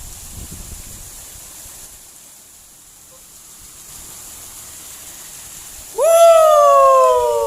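Faint running water from a small ditch. About six seconds in comes a loud, drawn-out call that slides steadily down in pitch.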